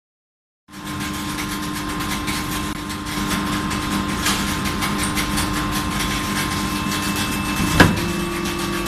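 Steady hum of a die forging hammer cell's machinery, with several held tones, starting after a brief silence. About eight seconds in comes a single loud metallic clank, as a hot billet goes into the die, and the hum steps up slightly in pitch afterwards.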